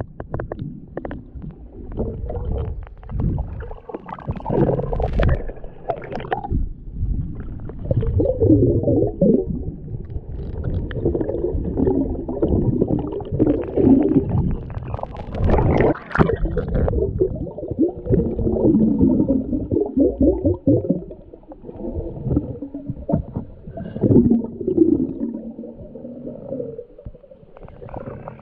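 Muffled underwater surge of waves churning sand over the rocks, gurgling and swelling every few seconds, with scattered sharp clicks.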